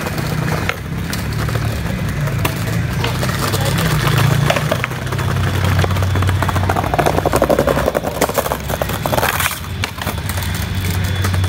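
Skateboard wheels rolling over brick paving, a rapid clatter of clicks from the paver joints that is densest a little past the middle as a board rolls close.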